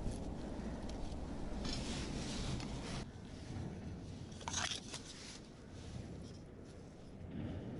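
Rustling and scraping handling noises, loudest about two seconds in and again briefly about four and a half seconds in, over a steady low rumble.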